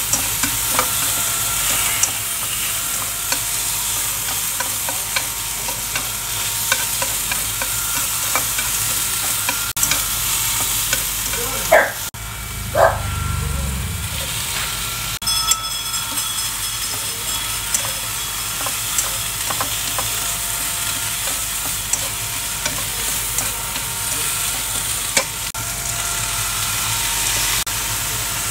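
Beef and sliced onion sizzling in a hot stone-coated frying pan, with wooden chopsticks stirring and tapping in short clicks. About halfway in, a brief low thud as a bowl of cucumber, tomato and spring onion is tipped into the pan.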